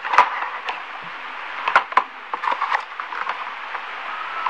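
Small cardboard medicine carton being opened by gloved hands and the cream tube slid out: irregular crackles and clicks of the paperboard flaps.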